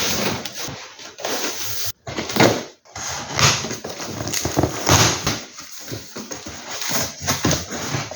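Packaging being handled and unpacked: crackling and rustling with many small clicks and knocks, broken by two brief pauses early on.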